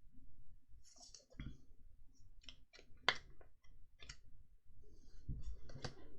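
Trading cards being handled and sorted: irregular light clicks and short rustles of card stock, with one sharper click about three seconds in.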